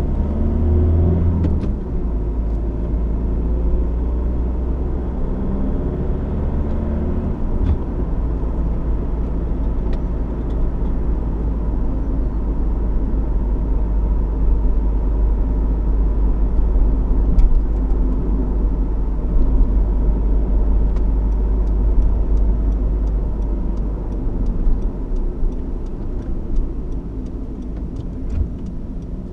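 2015 Honda CR-V's 1.6 i-DTEC four-cylinder turbo-diesel under way: the engine note rises over the first couple of seconds, then settles into a steady low rumble with road noise. Faint, evenly spaced ticking comes in over the last several seconds.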